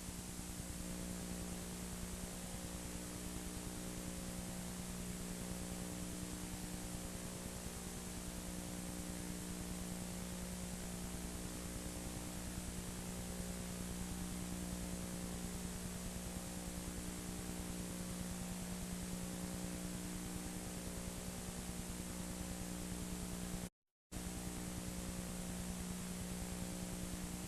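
Faint, steady hiss with a low electrical hum: the recording's own background noise, with nothing else heard. It cuts out completely for a moment near the end.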